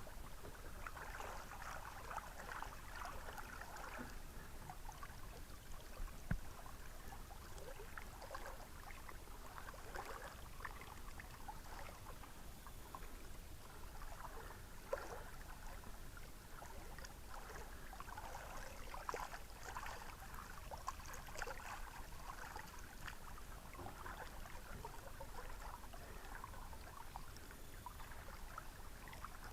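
River water trickling and lapping, a quiet, irregular stream of small splashes.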